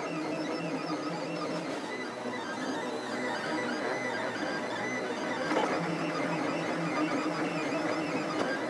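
FDM 3D printer running, its stepper motors whining and buzzing in shifting pitches as the print head moves to lay down the first layer of a gear bearing.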